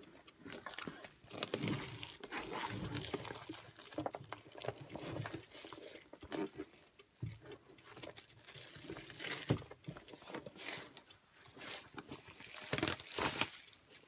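Plastic shrink-wrap crinkling and tearing as it is peeled by hand off a cardboard puzzle box, in uneven stops and starts.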